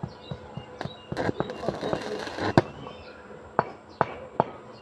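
Repeated sharp hammer blows on steel during gate welding repair work, settling into a steady rhythm of about two and a half strikes a second in the second half. A stretch of dense crackling comes just before the middle.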